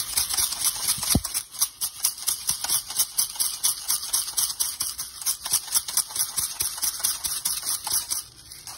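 Handheld spice grinder being twisted, grinding seasoning in a fast, continuous run of gritty clicks that stops shortly before the end.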